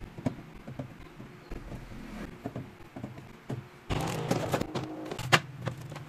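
Plastic drink bottles being set down and arranged on a refrigerator shelf: scattered light knocks and clatter, busier and louder in the last two seconds, with one sharp knock near the end.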